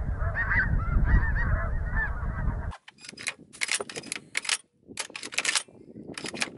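A large flock of snow geese calling in flight, many overlapping honks, with wind rumbling on the microphone. About three seconds in this cuts off and gives way to sharp metallic clicks and clatter from a semi-automatic shotgun's action being worked as it is unloaded.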